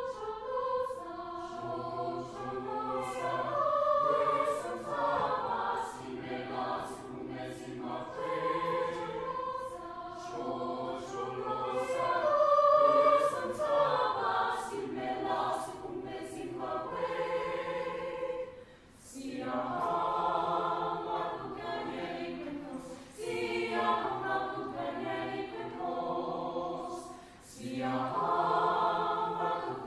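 Mixed choir of men's and women's voices singing a South African choral song in parts, with short breaks between phrases about two-thirds of the way through and near the end.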